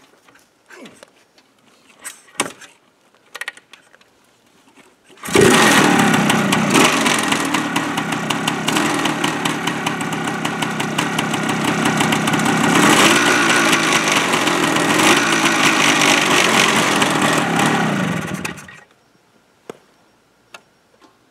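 A few faint knocks as the kickstarter is worked. Then, about five seconds in, the Suzuki 400's single-cylinder two-stroke engine fires on its first start after the rebuild. It runs for about thirteen seconds with the revs rising and falling a few times, then stops.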